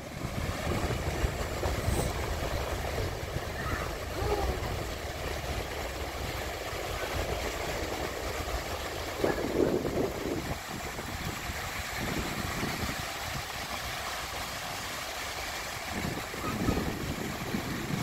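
Small sea waves breaking and washing up a sandy beach, with a low rumble of wind on the microphone.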